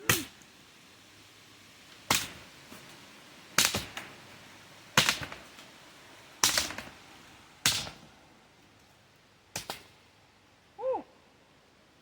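A sword blade chopping into a tree trunk, seven sharp hits about a second and a half apart. A short pitched sound follows near the end.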